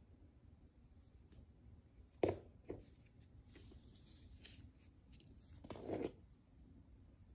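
Handling noises from hands working with plant leaves on a wooden floor: two short sharp clicks a couple of seconds in, then a brief rustle near the end.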